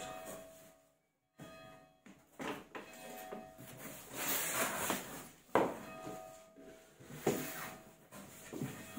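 Cardboard carton being opened by hand: flaps pulled and bent back with rustling and scraping of cardboard, and two sharp knocks in the second half.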